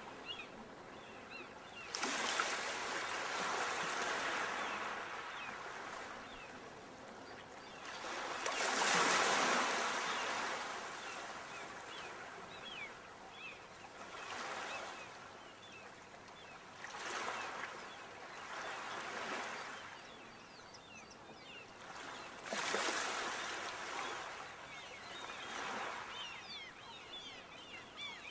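Ocean waves breaking and washing up the shore, swelling and ebbing about six times, the loudest surge near the middle.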